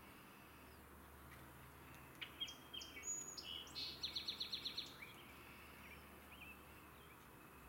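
Red-winged blackbird singing one song starting about two seconds in: a few short, sharp notes, then a quick rattling trill.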